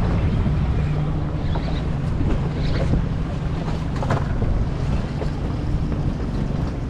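Boat engine idling in a steady low rumble, with wind buffeting the microphone.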